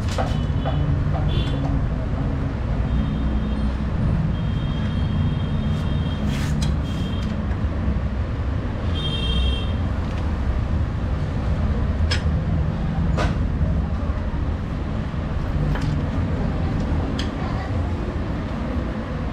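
Sharp metallic clicks and clinks of hand tools working on a Honda Activa scooter engine, a few times through, with short high ringing tones now and then, over a loud, steady low rumble.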